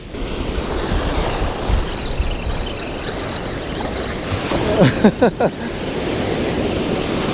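Surf washing onto the beach, a steady rush of noise with a low rumble underneath; a short voice cuts in about five seconds in.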